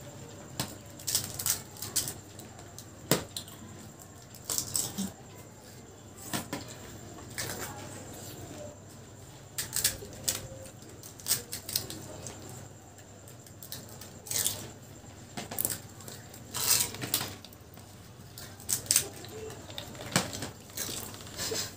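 Irregular crisp cracks and clicks of hollow fried puchka (pani puri) shells being broken open and handled, with light taps against plates and plastic bowls, over a steady low hum.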